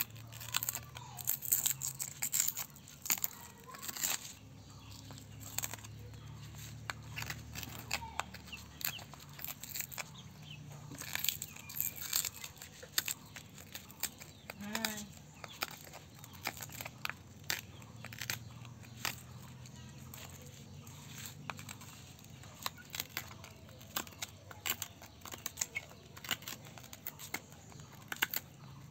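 A cracked tempered-glass screen protector being scraped and pried off a phone screen with a thin metal tool: irregular sharp crackles and clicks as the glass splinters break away.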